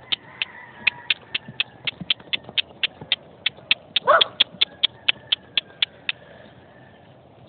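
A rapid series of sharp clicks, about four a second, that stops about six seconds in, with a dog's short falling whine about four seconds in.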